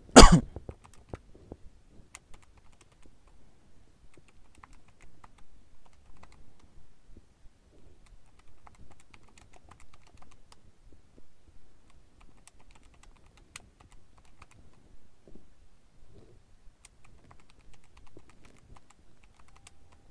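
Keys of a handheld calculator being pressed: faint clicks in irregular runs with short pauses, as a multiplication is keyed in again to check it. A brief loud thump right at the start.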